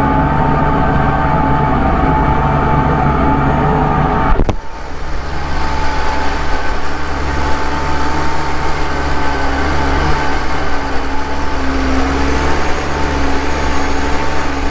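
Case IH tractor's diesel engine running steadily under load while pulling a field cultivator. A sharp click about four and a half seconds in, after which the engine sound changes in character.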